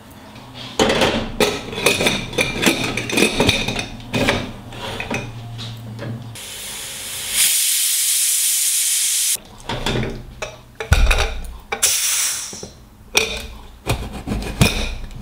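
Stovetop pressure cooker venting steam: a loud, steady hiss lasting about three seconds, starting and stopping abruptly. Before and after it come clinks and knocks of the metal pot, lid and utensils.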